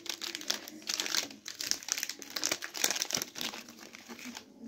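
Crinkly plastic-and-foil wrappers of Tonik chocolate wafer biscuit bars being torn open and peeled off by hand, a dense run of quick crackles and rustles.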